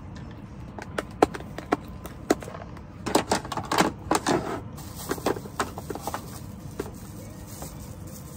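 Plastic food container and plastic bag being handled: scattered clicks and crinkling, densest a few seconds in, over a steady low background noise.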